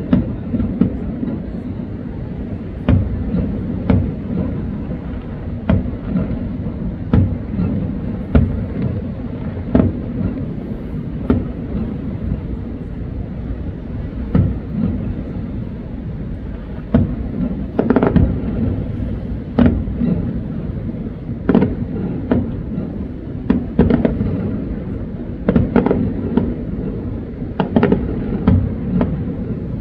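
Aerial fireworks bursting: an irregular series of booms and cracks, about one a second, over a continuous low rumble, with some of the loudest bursts past the middle.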